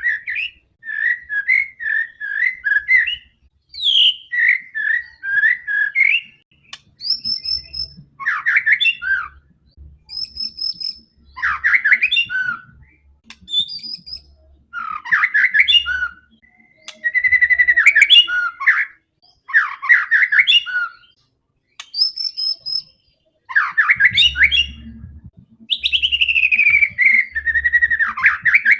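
White-rumped shama singing in loud, varied phrases of clear whistles, quick repeated notes and sweeping slurs, with short pauses between phrases: the fierce, aggressive song of a bird in full voice.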